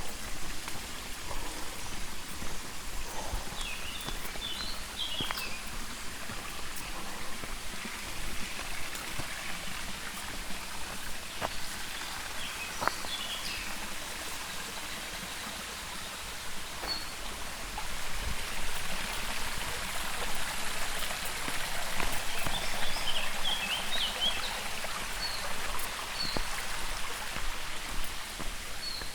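Forest stream flowing, a steady rush of water, with small birds chirping now and then and the water growing louder about two-thirds of the way in.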